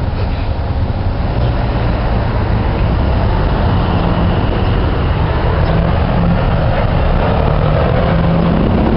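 Full-size passenger van's engine idling close by, a steady low rumble.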